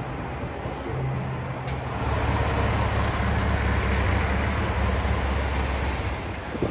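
A motor vehicle passing close by on the street: a low engine rumble and road noise swell about two seconds in and fade near the end.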